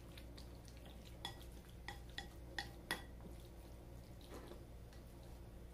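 Chopsticks stirring marinated shredded pork in a bowl, with a few light clicks of the chopsticks against the bowl in the first three seconds, then quieter mixing.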